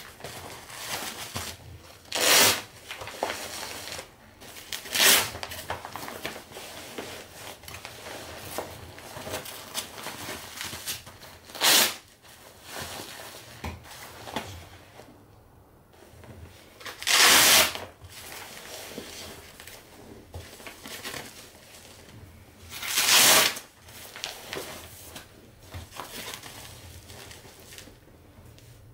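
Hook-and-loop fastener straps on fabric Panasonic Leg Refre EW-RA180 massager boots being ripped apart, five short tearing sounds about 2, 5, 12, 17 and 23 seconds in. Between them, quieter rustling and handling of the padded fabric as the boots are fitted on the legs.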